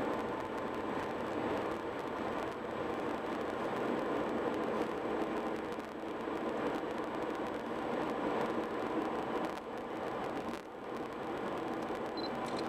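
Steady road noise inside a moving car's cabin: tyres and engine running as the car drives along the highway.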